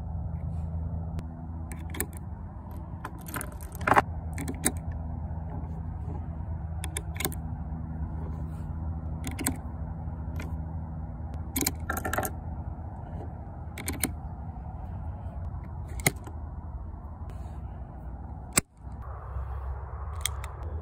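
Short metallic clicks and clinks of 8mm cartridges being pushed one by one into the chambers of a Lebel Modèle 1892 revolver's cylinder, about a dozen spread a second or two apart over a steady low hum.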